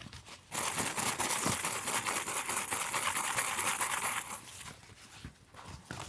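Paper crinkling and rustling as it is handled. It is a dense crackle that starts about half a second in and stops after about four seconds, with lighter handling ticks around it.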